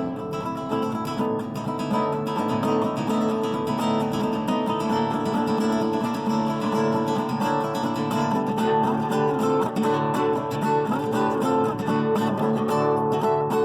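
Acoustic guitar music, with notes plucked and strummed in a continuous flow and held notes ringing.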